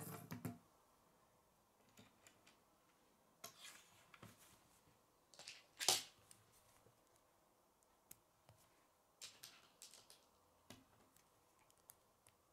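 Plastic K'nex pieces being handled and clicked together: scattered light clicks and rustles, the sharpest click about six seconds in.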